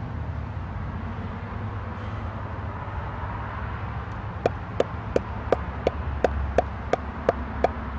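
Steady outdoor background rumble and hiss, like distant traffic. About halfway in, a regular ticking starts: sharp clicks with a short ping, evenly spaced at about three a second.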